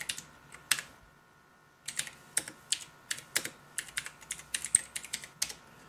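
Typing on a Z-88 mechanical keyboard: a few separate key clicks, a pause of about a second, then a steady run of keystrokes at about four a second.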